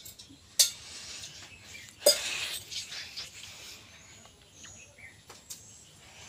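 A green coconut and steel vessels being handled: a couple of sharp knocks early, then a scraping, rustling noise about two seconds in that lasts about a second and a half, then small scattered ticks. Faint bird chirps sit behind it.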